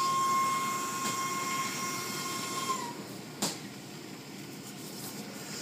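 Automatic car wash machinery heard from inside the car: a steady high whine over the hiss of water spray and cloth brushes. The whine drops away about three seconds in, followed by a single sharp knock.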